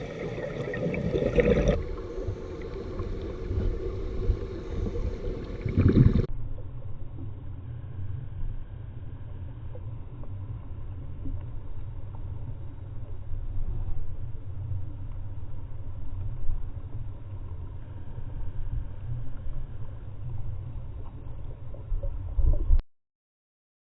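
Underwater recording noise: a steady low rumble of water against the camera with gurgling, changing abruptly a couple of times and cutting off suddenly near the end.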